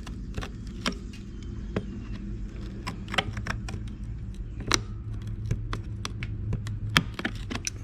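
Pliers jaws clicking and scraping on a badly rusted bolt head while trying to grip and turn it: irregular sharp metal clicks over a steady low hum. The bolt head is corroded away so the jaws find almost nothing to grab.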